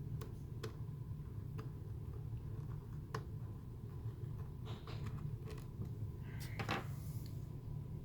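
Light clicks and taps of small plastic parts being handled and fitted while reassembling a car's A/C control panel, with a brief scraping rustle about six and a half seconds in, over a steady low hum.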